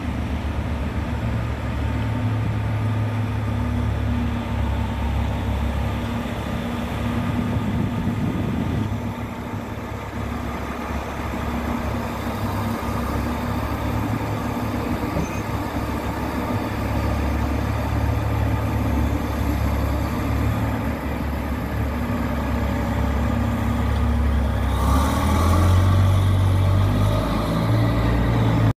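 Caterpillar 777 mining haul truck's large diesel engine running steadily as the truck drives off a landing craft's deck; near the end it grows louder and fuller.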